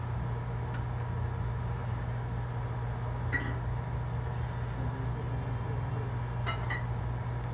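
Rotary tattoo machine running steadily with a low, even hum as it shades with a round-shader needle cartridge.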